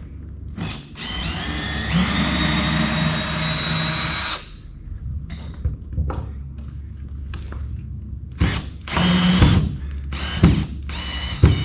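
Drill with a screwdriver bit trying to back out a stuck #12 stainless steel wood screw. It runs for about three seconds with a whine that rises as it spins up and then holds. A second short burst and a few clicks follow near the end. The screw will not come out and its head ends up stripped.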